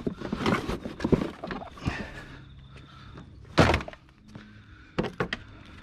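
Handling noise as a boxed computer power supply is picked up and carried, then one loud thunk about three and a half seconds in, and a few sharp clicks near the end.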